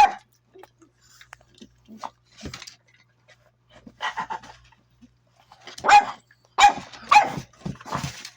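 Pug puppies barking: a string of separate short barks with a quick run of yaps about halfway through, the loudest barks coming near the end.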